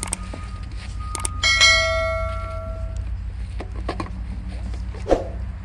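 A single bell-like metallic ring about a second and a half in, fading over about a second and a half, among a few clicks and knocks of handling, over the low steady hum of an idling engine.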